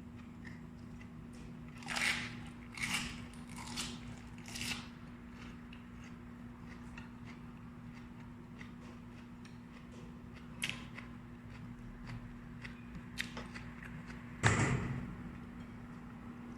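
Close-up crunching of raw vegetables being bitten and chewed: four crisp crunches about a second apart, then quieter mouth clicks and one louder knock near the end, over a steady low hum.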